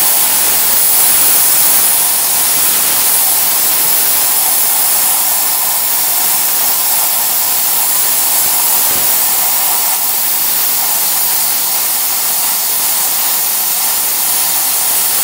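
Plasma cutter (Tenya CUT 60C with AG60 torch) hissing steadily as its arc and air jet cut through 12 mm steel plate, running on the machine's built-in air compressor.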